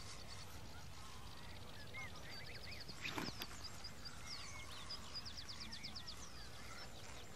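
Wild birds calling around a lake: short high chirps and quick trills of high notes, with a few lower gliding calls. A short sharp noise about three seconds in.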